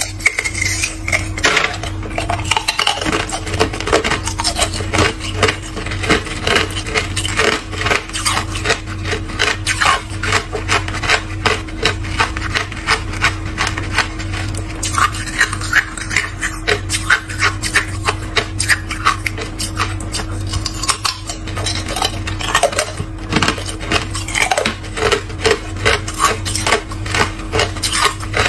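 Hard clear ice being bitten and chewed: a dense, irregular run of sharp crunches and cracks throughout, over a steady low hum.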